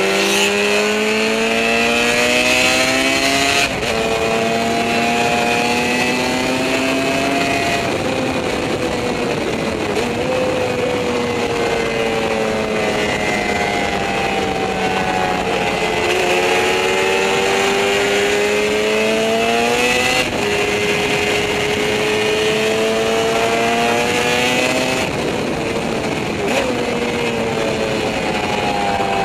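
Yamaha 750 two-stroke racing motorcycle engine heard from on board at speed. It revs up in pitch through the gears and drops sharply at each gear change, easing off and falling in pitch into the corners, over steady wind rush.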